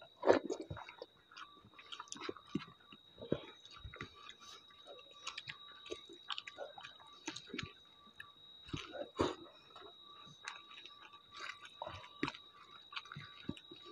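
Close-miked eating: chewing with wet lip smacks, and fingers mixing rice and thick dal on plastic plates, in short irregular clicks and squelches. A faint steady high whine runs under it.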